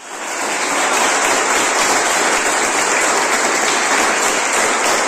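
A roomful of schoolchildren clapping: loud, dense applause that starts abruptly and swells within the first second, then holds steady.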